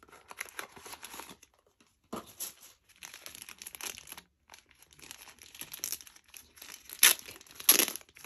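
Clear plastic wrapper crinkling and tearing as it is pulled open by hand, with a little cardboard box handling early on. Irregular crackling comes and goes, with two louder crinkling bursts near the end.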